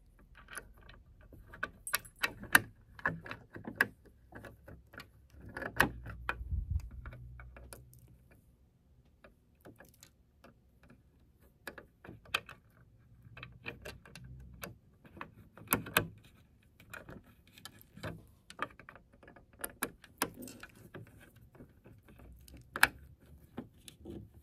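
A screwdriver driving a screw into the plastic side cover of a Janome 7330 sewing machine: irregular small clicks, ticks and scrapes, with a few louder knocks as the tool and hands shift on the housing.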